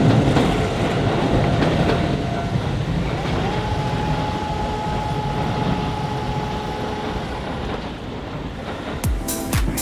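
Electric commuter train running past a level crossing, its rumble slowly fading. A steady whine comes in with a short rise about three seconds in and holds for about four seconds. Music starts near the end.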